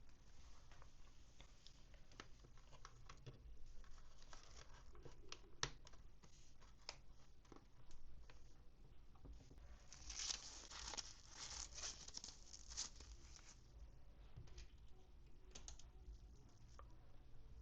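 Quiet toy packaging being handled: scattered light clicks and taps, then about ten seconds in a few seconds of packaging tearing and crinkling.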